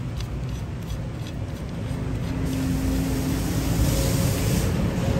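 Low road-traffic rumble. About halfway through, a passing motor vehicle's engine hum comes in and grows louder.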